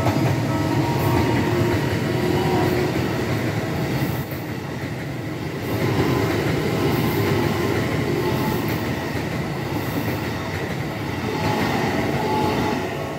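Train passing over a railway level crossing, its wheels giving a steady rumble on the rails. The crossing's warning bell rings beneath it. The train noise starts to die away near the end.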